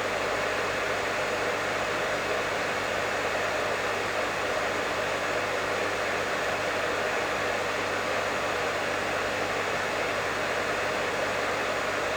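Professional hair dryer running steadily: a constant airflow hiss with a faint low motor hum underneath.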